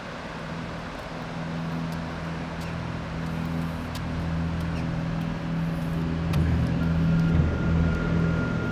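Low droning music score, a few deep held notes that change pitch now and then, swelling slowly in loudness; a high sustained tone joins about seven seconds in.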